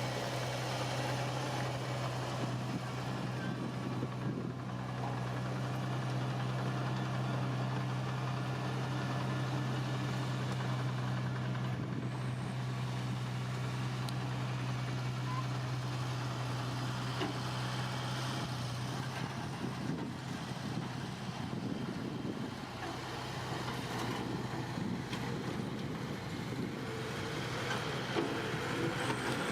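Diesel engine of heavy earthmoving machinery running steadily with a low hum. The hum stops about two-thirds of the way through, leaving rougher, noisier engine sound.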